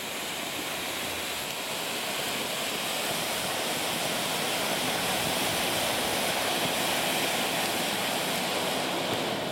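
Weco Bugano Vulkan 'Pink Stars' firework fountain (a 250 g ground fountain) burning, spraying a column of sparks with a steady rushing hiss.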